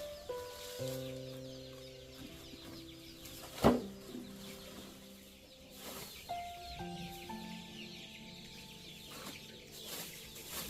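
Chickens calling, with many small high chirps, over soft background music: a slow melody of held notes. A single sharp knock comes a little over three and a half seconds in.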